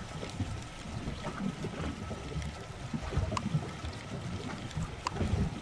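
Water sloshing and lapping against a small boat's hull at sea, with a low wind rumble on the microphone. A few faint sharp clicks can be heard, one a little past halfway and one near the end.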